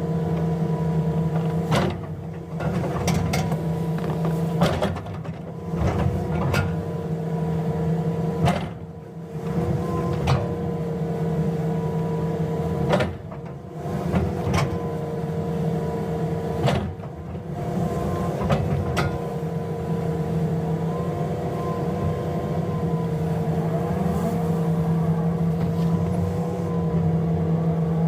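Hydraulic excavator's diesel engine running steadily with a constant hum, broken by sharp clanks every few seconds as it digs, with brief drops in engine sound a few times.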